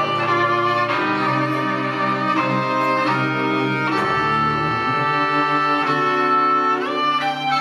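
Violin and cello bowing long held notes together, the harmony shifting about once a second. A low cello note sounds near the middle, and a note slides upward near the end.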